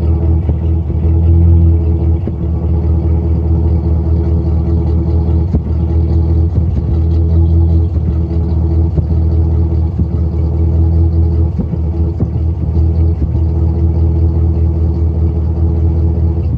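1999 GMC Sierra's 5.3-litre V8 idling at a steady pitch, with its exhaust broken by occasional irregular blips. This is the engine with a random misfire code, which the owner traced to a spark plug with microscopic cracks.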